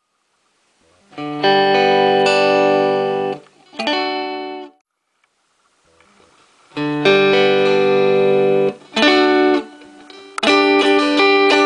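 Homemade three-string guitar played through its hand-wound pickup: chords strummed and left to ring in a few separate bursts with short pauses between them, then quicker, busier strumming near the end.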